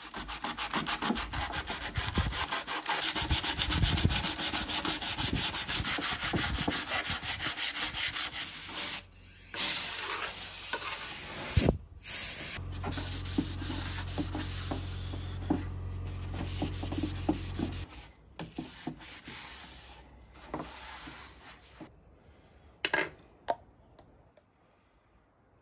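Sandpaper rubbing on the wooden boat hull in fast, continuous strokes, then breaking up into shorter patches after about nine seconds. Near the end only light clicks and handling sounds remain.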